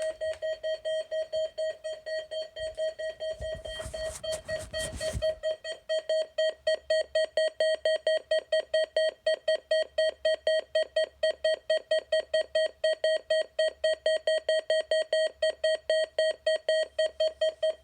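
Weather radio receiver's electronic alert tone beeping rapidly at one steady mid pitch, about four beeps a second. A short burst of noise cuts in about four seconds in.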